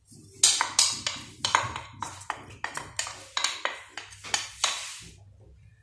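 A quick run of about a dozen clinks and knocks as chopped onion is tipped from a white bowl into a black frying pan, the bowl knocking against the pan. The knocks stop about a second before the end.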